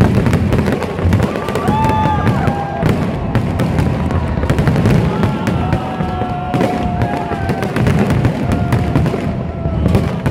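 Fireworks display: aerial shells bursting in a dense, continuous run of bangs and crackles, with no break.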